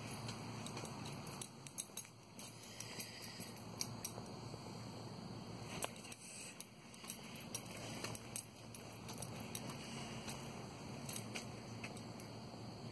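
Footsteps on a gritty path, with irregular sharp clicks and ticks over a steady low background noise.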